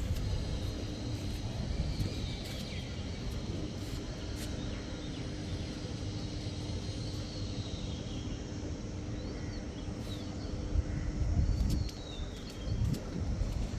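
Outdoor ambience: small birds chirping over a steady low rumble, with a faint steady hum through most of the first part and the rumble growing louder near the end.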